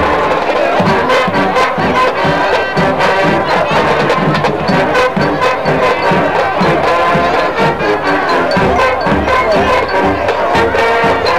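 High school marching band playing: brass, including trumpets and sousaphones, over a steady beat of bass drums.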